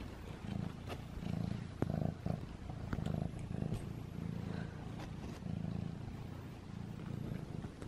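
Domestic cat purring close to the microphone, the rumble swelling and fading in even waves under a second apart, with a few light clicks.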